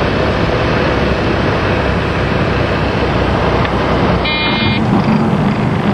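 Steady engine and airflow drone of a light aircraft, heard inside the cockpit as it touches down and rolls out on the runway. A brief high-pitched tone sounds for about half a second, about four seconds in.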